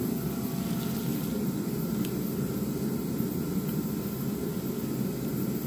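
Portable forced-air heater running with a steady roar of its fan and burner.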